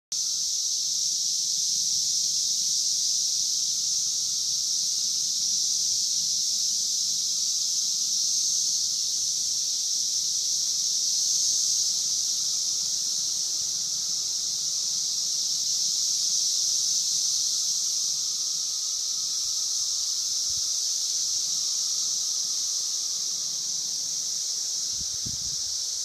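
Chorus of Brood V 17-year periodical cicadas (Magicicada): many insects calling at once in a steady, high-pitched, unbroken drone.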